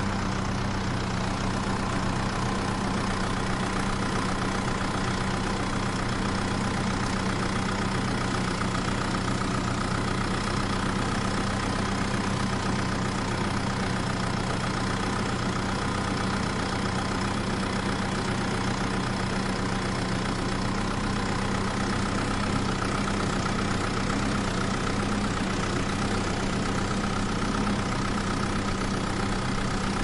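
Steady truck engine idling sound, an engine sound effect laid over toy dump truck play.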